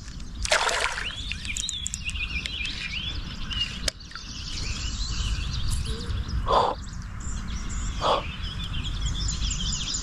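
Songbirds chirping over a steady low rumble, with a hooked largemouth bass splashing at the water's surface: a brief burst about half a second in, then two short splashes about six and a half and eight seconds in.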